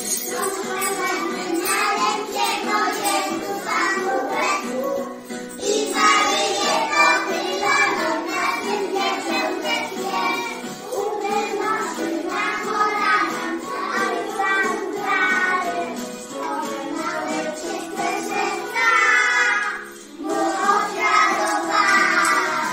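A group of preschool children singing a lively Polish Christmas pastorale (pastorałka) together, with a short break about 20 seconds in.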